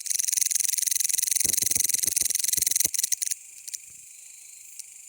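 Mecopoda elongata bush cricket calling with a loud, rapid pulsing buzz that stops abruptly about three seconds in, after which only a faint high-pitched background remains.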